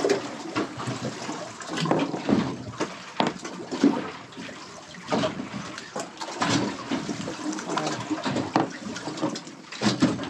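Water sloshing and gurgling against the hull of a small boat at sea, with scattered short knocks and clicks.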